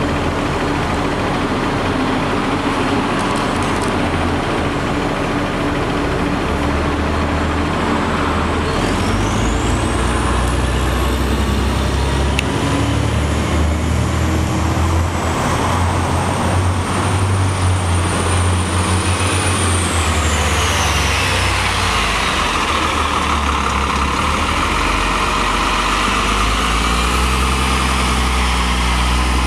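New Flyer low-floor CNG transit bus pulling up and in toward the curb: the engine runs louder under load, with a high whine that climbs in pitch, holds, then falls away about two-thirds of the way in as the bus slows. A hiss follows near the end.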